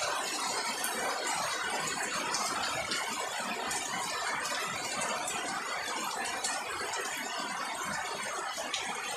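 Steady rain falling on garden foliage and ground: a dense, even hiss with scattered sharper drop ticks.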